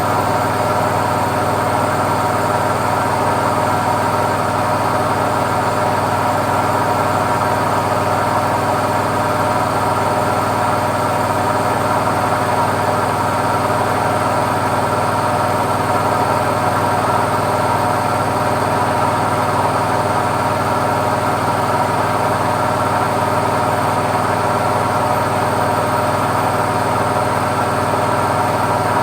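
Washing machine in its spin cycle, giving a steady, unbroken hum of several tones over a noisy whir.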